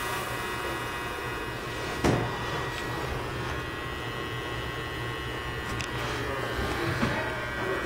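Belt-driven servo drill press running with a steady motor whine and hum, a sharp click about two seconds in and a few lighter clicks later.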